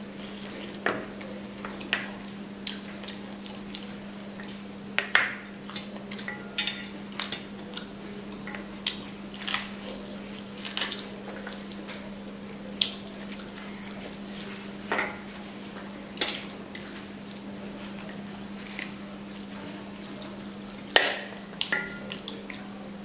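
Close-up eating sounds: wet lip smacks, sucking and chewing on a piece of chicken curry, with fingers working rice against a steel plate. Short sharp smacks come every second or two over a steady low hum.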